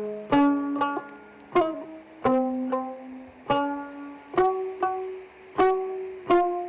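Background music: a plucked string instrument plays a slow melody of single ringing notes, roughly one to two a second, each fading before the next.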